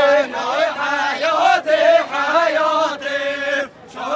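Unaccompanied singing of a Kurdish folk song for halay dancing, held and wavering notes sung in unison. The singing stops briefly near the end, then picks up again.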